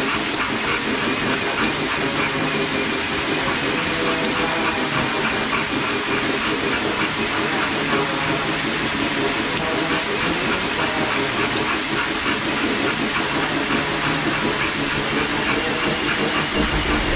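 Dog slat mill turning steadily under a running dog: a continuous rolling clatter of the slats over their rollers, with the dog's paw falls mixed in, holding one even level without pause.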